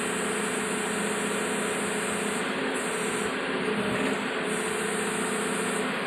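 Diesel engine of a Doosan 180WV wheeled excavator running steadily as the boom and bucket work, with a high hiss that cuts in and out several times.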